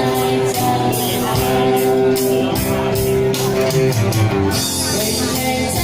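Pop-rock music with a singing voice, guitar and a steady drum beat.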